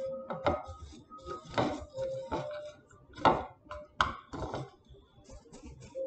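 Hands crumbling dry herbs in a ceramic bowl: several sharp knocks and scrapes of fingers and rings against the bowl, the loudest a little past three seconds in.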